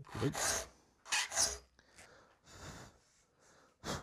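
Hand file rasping across the steel teeth of a 6 TPI crosscut handsaw held in saw chops, as the teeth are sharpened one by one. It comes as several separate strokes of about half a second each, the first two the loudest, with a short one near the end.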